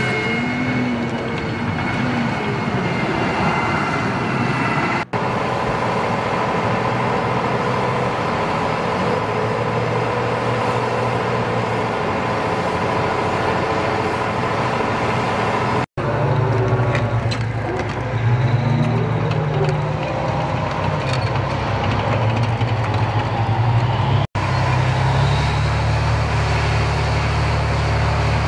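Tanks and other tracked armoured vehicles running their engines: a steady high whine over a low rumble, the rumble growing heavier later on. The sound shifts abruptly a few times between shots.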